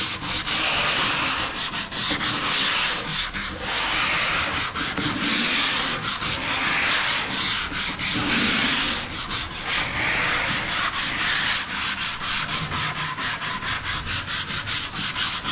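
Sandpaper rubbing on the wood of cabinet doors in rapid, even back-and-forth strokes, with no break.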